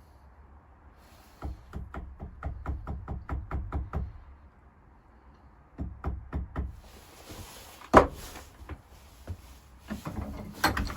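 Light hammer taps driving the small retaining pin back into a VW T4 lock barrel: a quick run of about a dozen taps, a few more a couple of seconds later, then a single sharp click.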